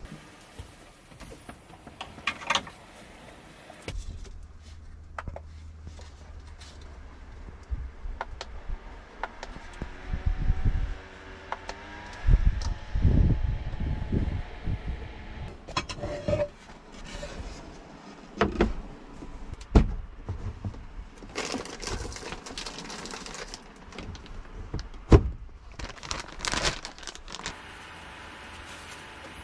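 Scattered knocks, clicks and clatter of things being handled, with a low steady hum for several seconds in the first half.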